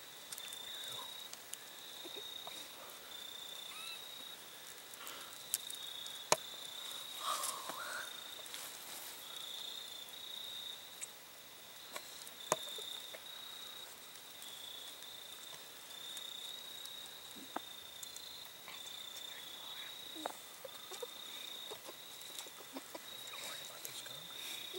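Crickets chirring in a steady high-pitched trill, with scattered faint clicks and rustles.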